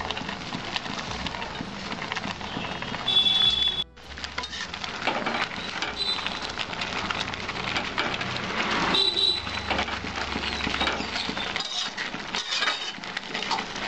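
Metal spatula knocking and scraping against an aluminium kadai as a heap of chopped jute leaves is pushed down into simmering masoor dal, the leaves rustling.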